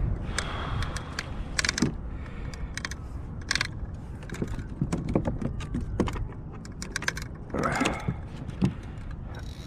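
Fishing gear being handled on a kayak: irregular clicks, knocks and rattles, with a brief scraping rustle about eight seconds in.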